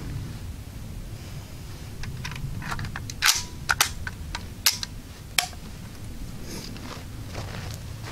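Zastava M70AB2 automatic rifle being handled: a quick run of about half a dozen sharp metallic clicks and clacks between about three and five seconds in, the last with a short metallic ring.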